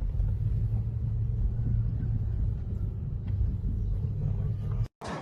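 A steady low rumble with no voices, cut off suddenly near the end.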